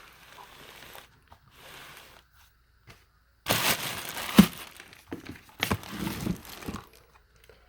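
Packaging crinkling and rustling as a car-audio speaker is handled out of its box: faint at first, then louder from about halfway, with one sharp knock.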